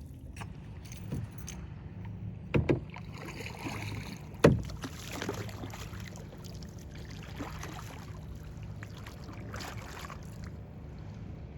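Canoe paddling: the paddle splashes and swishes through the water, with a few hollow knocks of the paddle against the canoe's hull, the loudest about four and a half seconds in. A steady low rumble runs underneath.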